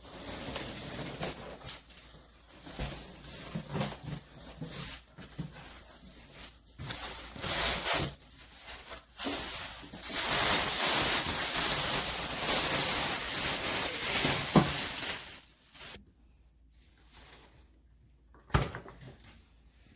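Handling noises: rubbing and scraping, with a long stretch of steady rubbing in the middle and two sharp knocks in the last few seconds.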